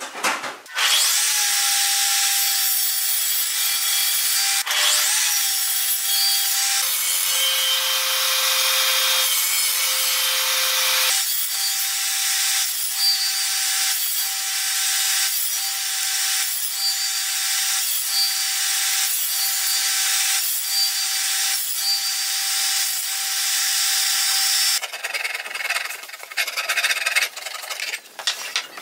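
Table saw running with a steady whine, cutting a groove across a wooden board; the whine drops in pitch for a few seconds as the blade takes the cut, then a rhythmic cutting sound comes about once a second as the board is worked over the blade. The saw stops a few seconds before the end, leaving lighter irregular noises of wood being handled.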